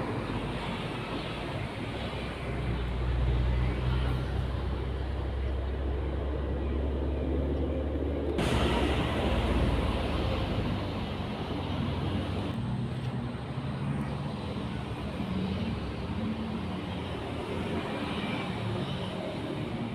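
Steady low rumble like a distant engine or road traffic, which changes abruptly about eight seconds in.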